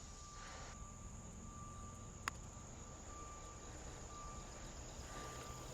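Faint steady chirring of insects such as crickets, with a single sharp click about two seconds in from a putter striking a golf ball.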